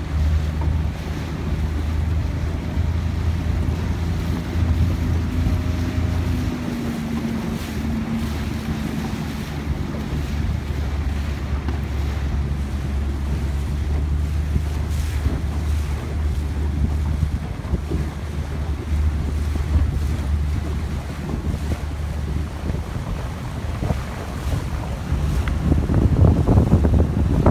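Wind buffeting the microphone over the wash and splash of choppy water, with a steady low rumble underneath; it swells louder near the end.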